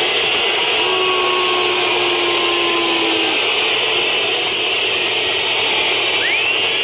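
Loud, steady noise of a packed football stadium crowd, with a short rising whistle near the end.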